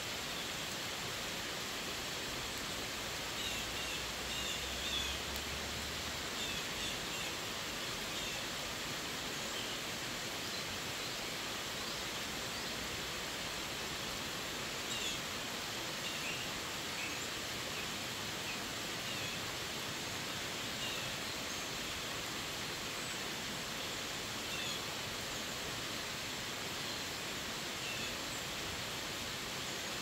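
Steady rain falling on forest leaves and a wet road, an even hiss, with a bird giving short high chirps now and then.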